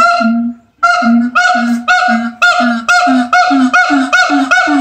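Siamang gibbons howling, their calls amplified by their throat sacs. After a brief pause just under a second in, a loud run of repeated hooting notes speeds up and rises slightly in pitch.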